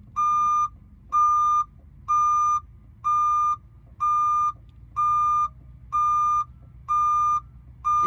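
Electronic beeper sounding a steady series of beeps, about one a second, each about half a second long, over a faint low hum, while the left and right buttons of the Moffett forklift remote are held down to pair it with the truck-mounted forklift.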